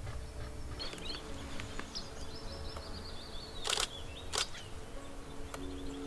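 Common redstart singing high, quick chirping and twittering notes, with a loud camera shutter from the Nikon DSLR firing twice just under four seconds in, first as a short rapid burst and then as a single click.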